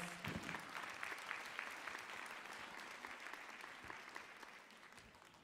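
Audience applause, the clapping thinning and dying away.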